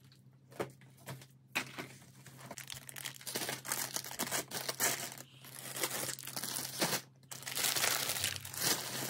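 Packaging crinkling and rustling with bursts of tearing as hands rummage in a jute shopping bag, busier from about three seconds in, with a brief pause near seven seconds.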